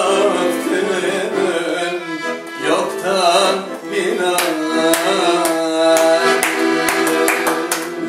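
Piano accordion playing chords and melody while a man sings, with hand claps keeping time from about halfway through.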